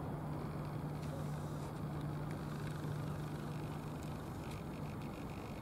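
Steady distant engine drone: a constant low hum over an even wash of background noise.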